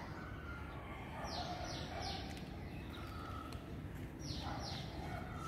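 Small birds chirping: a quick run of three short, falling chirps about a second in, then two more near the end, over a steady low background rumble.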